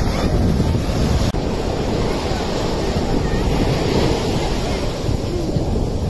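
Ocean surf washing on a beach, with wind buffeting the microphone in a steady rush.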